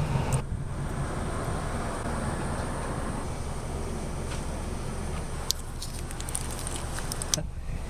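2007 Chevy Aveo's four-cylinder engine running steadily, with two brief sharp clicks near the end.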